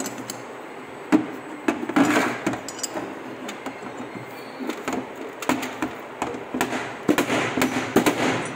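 Irregular metal clicks and knocks of a ring spanner working a fitting on a Bosch CP3 diesel high-pressure pump, as the pump's cast body is handled and set down on a steel bench; the sharpest knock comes about a second in.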